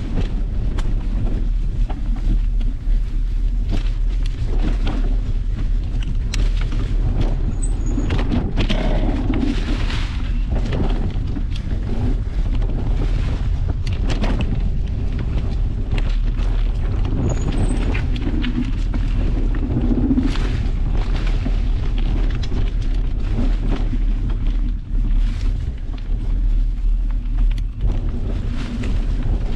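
Mountain bike riding a dirt singletrack, with steady wind rumble on the action camera's microphone and frequent rattles and clicks from the bike and tyres over the rough trail.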